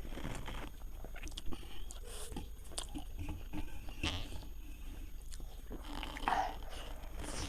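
A person biting and chewing food, with irregular crunching and smacking mouth sounds, and a short brighter sound about six seconds in.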